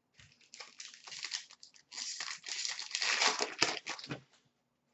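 Crinkling and rustling of foil hockey-card pack wrappers and cards being handled. The rustling builds up, is loudest about three seconds in, and stops a little after four seconds.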